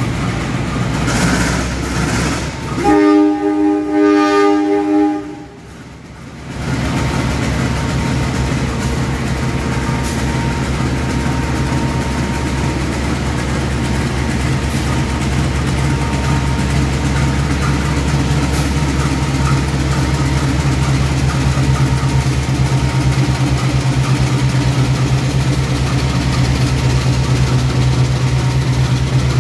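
A CC201 (GE U18C) diesel-electric locomotive pulls a passenger train slowly past, its engine giving a steady low drone. About three seconds in, the train horn sounds a multi-tone chord for about two and a half seconds, the loudest sound. The engine drone then grows slightly louder as the locomotive draws near.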